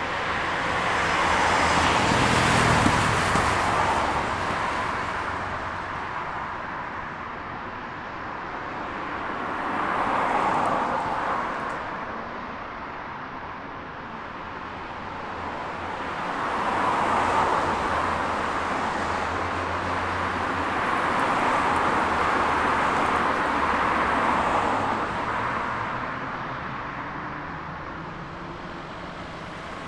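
City road traffic: cars passing one after another, the tyre and engine noise swelling and fading about four times as vehicles go by, over a steady background of traffic.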